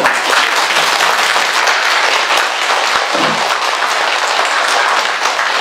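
Congregation applauding together, steady clapping from many hands that keeps going without a break.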